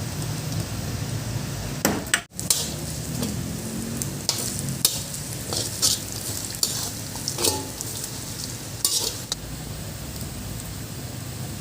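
Food frying in oil in a pot with a steady sizzle, while a spoon knocks and scrapes against the pot a dozen or so times as it is stirred.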